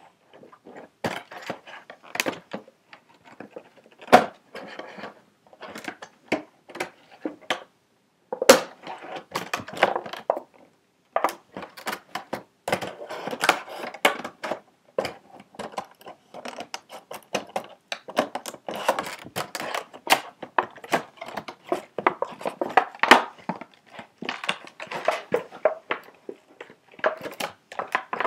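Packaging being cut and pulled at by hand: an irregular run of crinkling, clicks and rustles, with a few sharper knocks scattered through.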